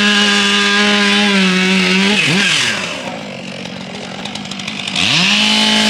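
Two-stroke chainsaw running at full throttle, its pitch dipping slightly, then dropping to idle about two seconds in and revving back up to full speed near the end.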